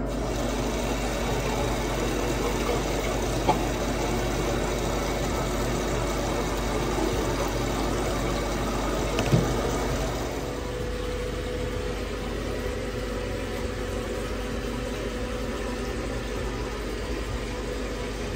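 Bathroom sink tap running in a steady stream, with two short knocks. About ten seconds in the water noise drops, leaving a quieter steady hiss with a hum.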